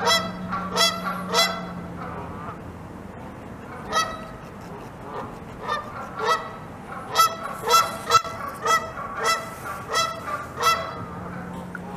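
Geese honking: short repeated calls, a few at first, then sparse, then a quicker run of honks in the second half.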